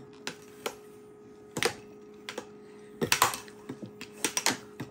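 Tabletop air hockey in play: plastic mallets and the puck clacking against each other and the table's rails in quick, irregular clicks, some in rapid bunches of several hits. A steady low hum runs underneath.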